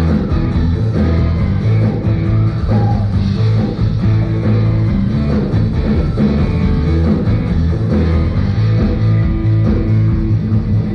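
Live band music in an instrumental break: drums, bass and electric guitar playing a steady beat with heavy bass, without singing.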